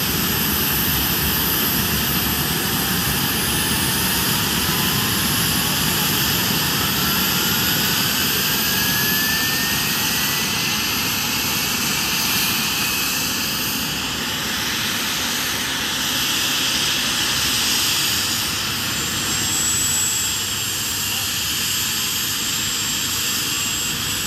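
Helicopter running close by: a dense, steady rush of engine and rotor noise, with a thin whine rising slowly in pitch.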